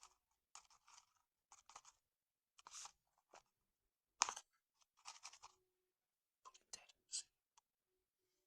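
Soft scrapes, rustles and clicks of food preparation at a bowl of yogurt, as ingredients and packets are handled, with one louder click about four seconds in.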